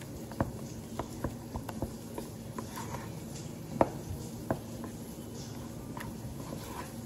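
Wooden spoon stirring thick mashed potatoes in a saucepan: soft mushy scraping with irregular taps and knocks of the spoon against the pan, the loudest a little before four seconds in.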